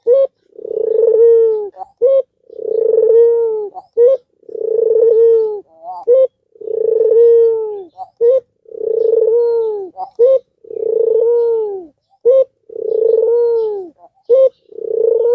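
Albino ringneck dove (puter) cooing over and over: each phrase is a short higher note followed by a long rolling coo that falls in pitch at its end, about one phrase every two seconds, eight times in a row.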